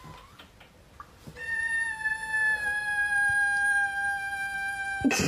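A domestic cat gives one long, high, steady meow, nearly four seconds, that slides slightly lower in pitch. It is cut off by a brief loud noise near the end.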